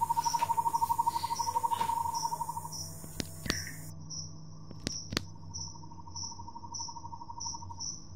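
Night insects: crickets chirping, a high chirp about three times a second, over a lower rapid trill that fades out about a third of the way in and returns more faintly later. A few sharp clicks sound near the middle.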